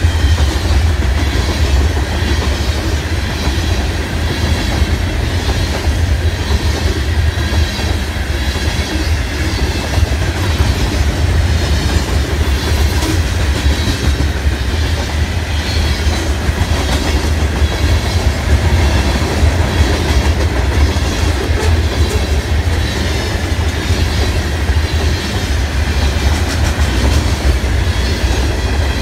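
Freight train of covered hopper cars rolling past close by: a steady low rumble with a regular clacking of wheels over rail joints.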